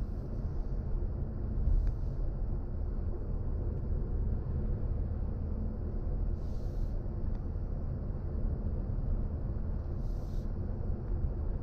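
Steady low road and tyre rumble from a BMW i4 M50 electric car driving, with no engine note. Two short soft hisses come through about six and ten seconds in.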